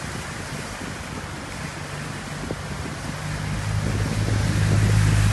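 Pickup truck engine running as it drives through floodwater toward the microphone, its low hum growing steadily louder from about two seconds in, over a constant rush of moving water and wind noise on the microphone.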